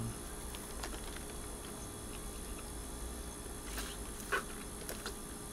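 A person drinking from a paper fountain-drink cup: a faint swallow about four seconds in, over a quiet, steady room hum.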